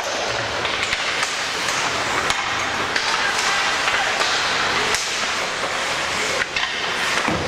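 Ice hockey game in an echoing rink: a steady hiss of skates scraping on the ice, with scattered sharp clacks of sticks and puck.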